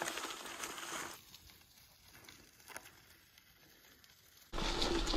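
Bicycle tyres rolling over dry fallen leaves on a trail, a crackling rustle. About a second in it cuts to a much quieter stretch with a few faint clicks. Loud rolling noise returns near the end.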